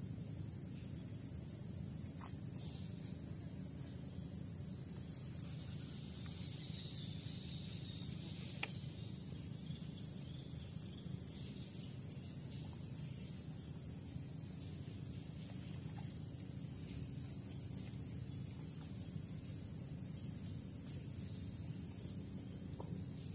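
A steady, unbroken high-pitched insect drone over a low, even rumble, with a few faint clicks.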